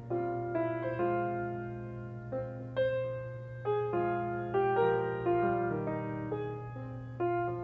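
Background piano music: a slow melody over chords, each note struck and then fading, above a steady low tone.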